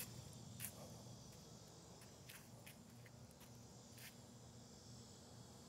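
Faint, steady, high-pitched insect drone, with several light clicks in the first few seconds.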